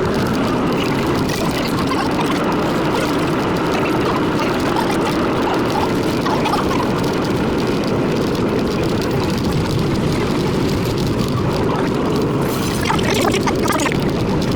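Century-old IRT Low-V subway car running in a tunnel: a loud, steady rumble of wheels on the rails and the car body.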